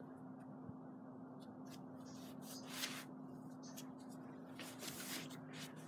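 Faint rustling and scuffing from someone walking and handling a phone, twice in short bursts, over a faint steady low hum.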